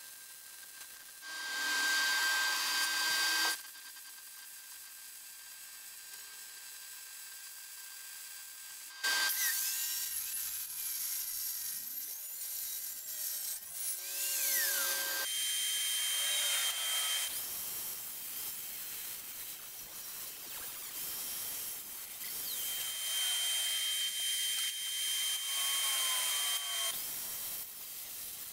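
A short burst of crackling wire-feed welding on steel tubing near the start. From about a third of the way in, a handheld angle grinder runs steadily with a high whine and cuts into steel.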